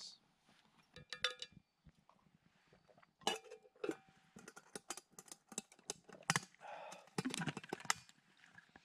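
Metal camp cookware clinking and knocking: a spoon stirring and tapping in a metal pot, with pots and lids knocked together, some strikes ringing briefly.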